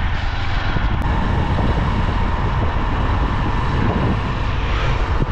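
Motorbike ride: steady wind rush over the microphone mixed with the bike's engine and road noise.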